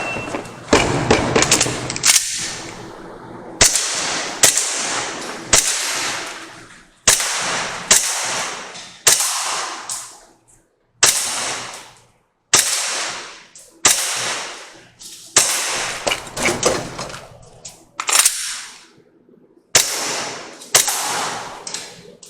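WE Glock 17 gas blowback airsoft pistol firing a string of shots: sharp cracks, singly and in quick pairs and triples, with short pauses between groups, each fading away quickly.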